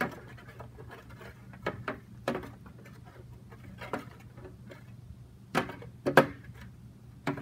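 A spoon stirring liquid starch into a glue-and-water mix in a glass mixing bowl, knocking and clinking against the glass in scattered taps, the loudest a pair about six seconds in.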